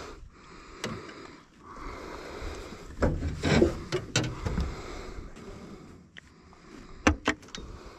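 Knocks and rubbing of handling in an aluminium boat as a caught rainbow trout is brought aboard. The loudest thumps come about three and a half seconds in, and two sharp knocks come about seven seconds in.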